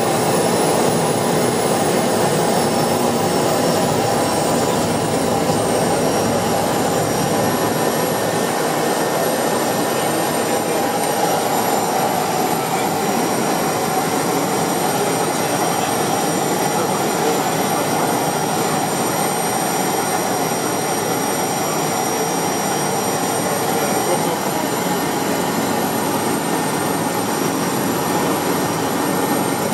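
An Atlas Angel's Walter M601D turboprop engine and propeller run steadily while the aircraft taxies, heard from inside the cockpit. There is a constant drone with a thin high turbine whine over it.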